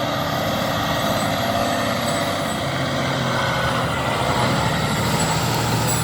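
Fire apparatus (a quint ladder truck) driving on a response, its heavy engine running steadily with the engine note changing about two and a half seconds in.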